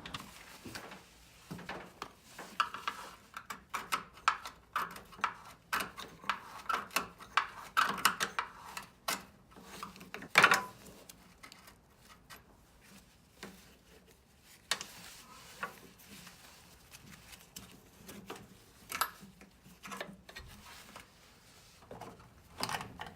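Metal parts and hand tools clinking and scraping as the VW Beetle's pedal-cluster tube and washer are worked loose. The clinking is busiest in the first half, with one louder knock about ten seconds in, and only occasional clicks after that.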